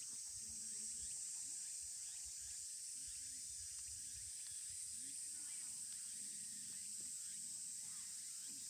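Steady, high-pitched outdoor insect chorus, droning without a break, with faint low murmurs beneath it.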